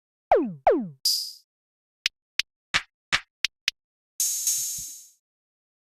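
Programmed electronic drum beat playing back from a phone beat-making app: two deep 808 hits that slide down in pitch, a hi-hat, then a run of six quick hi-hat ticks as a roll. Two longer cymbal-like splashes with low thuds come about four seconds in.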